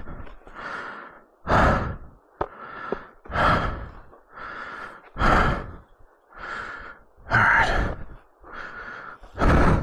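A man breathing heavily close to the microphone: a loud breath about every two seconds, with a quieter breath between each.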